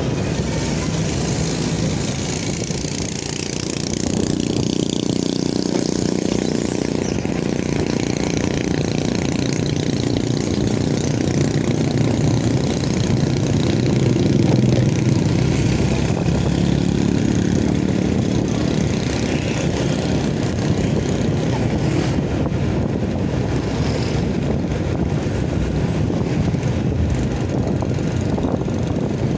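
Motorcycle engine running steadily under way, with road noise. The sound stays even throughout, swelling slightly about halfway through.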